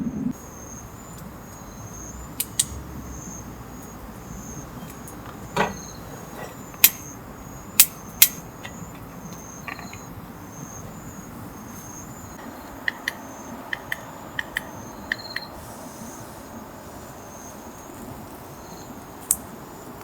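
An insect chirping in a steady, even series of short high chirps, with a scattering of sharp clicks and knocks, including a quick run of small ticks in the second half.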